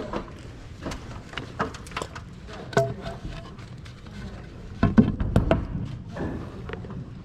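Irregular clicks and knocks from handling and fitting wooden trim pieces, with the loudest cluster of knocks about five seconds in.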